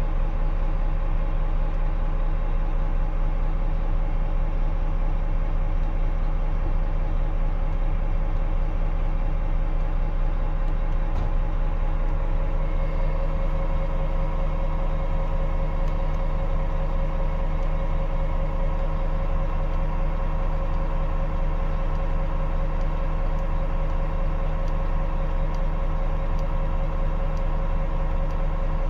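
Volvo FM 420's 13-litre straight-six diesel idling steadily in neutral, heard from inside the cab.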